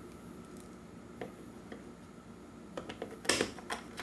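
Small metal screws and a screwdriver being handled against a Roomba's plastic housing: scattered light clicks and taps, with a short cluster of louder clicks about three seconds in.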